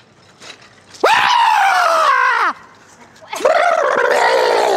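A person screaming in fright, twice, each scream loud and high, about a second and a half long, and dropping in pitch as it breaks off.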